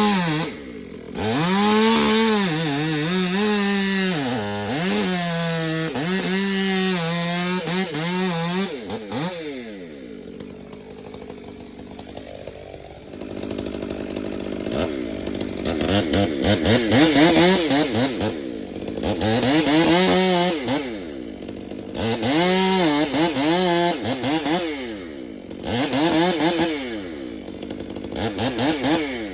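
Gas chainsaw cutting pine, revving up and dropping back again and again, with a quieter stretch running lower in the middle before it revs hard again.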